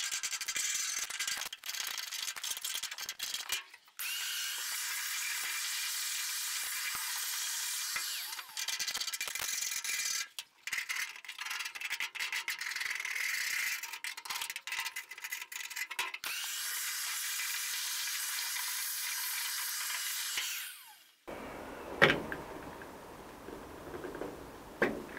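A wood chisel scraping old sound-deadening and debris off the steel rear cab panel of a 1941 Ford pickup: a steady scratchy scraping with brief breaks. It stops about 21 seconds in, and a couple of light knocks follow.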